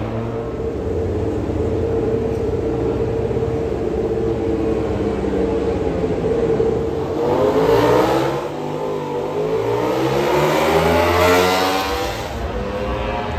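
Motor vehicle engine running at a steady pitch, then revving with its pitch rising and falling several times from about seven seconds in.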